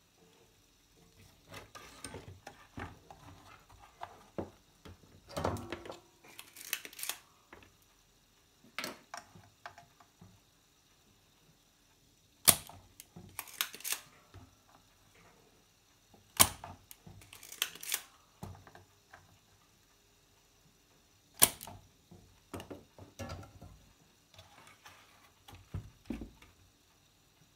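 Scattered sharp clicks, knocks and rustles from a CRT television's circuit board and tools being handled on a wooden workbench, with three louder snaps about four to five seconds apart in the second half.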